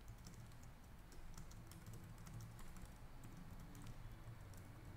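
Faint typing on a computer keyboard: a quick run of light key clicks as a sentence is typed into a text box.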